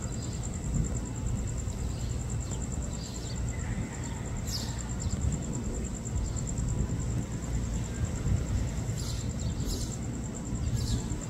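Outdoor ambience: a steady low rumble with a constant high-pitched whine, and short bird chirps about four seconds in and again several times near the end.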